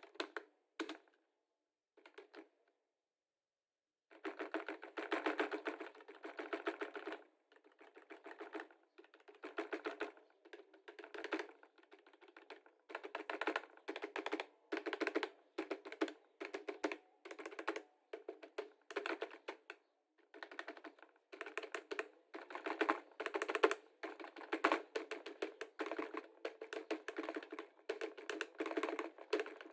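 Computer keyboard being typed on in quick bursts of keystrokes, each run lasting a second or two with short pauses between them. There is a near-silent gap about three seconds in.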